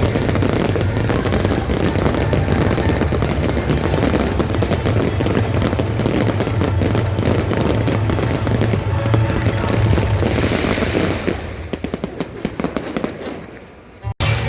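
Fireworks barrage with dense, rapid crackling and popping. It thins out and fades over the last few seconds, cuts off briefly near the end, then picks up again.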